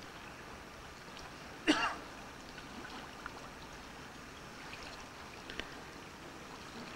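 Steady rush of a small river flowing. About two seconds in, a person gives one short, loud cough, the loudest sound here, and a few faint clicks follow later.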